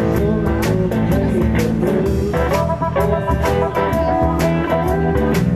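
Live blues band playing: an electric guitar lead with bending notes over a Ludwig drum kit with cymbal and drum hits.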